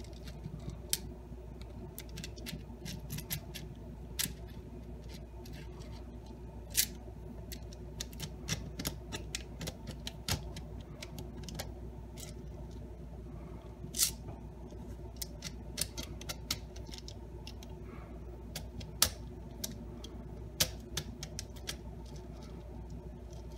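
.177 calibre BBs clicking against each other and the plastic as they are pushed through the ball grooves of a 3D-printed linear bearing carriage with a screwdriver: sharp, irregular clicks over a low steady hum.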